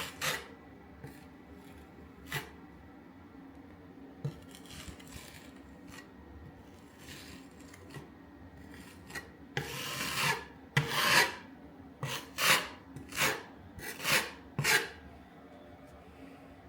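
Spatula scraping polyfiller into holes and cracks: a few scattered scrapes, then a quick run of about eight strokes in the second half.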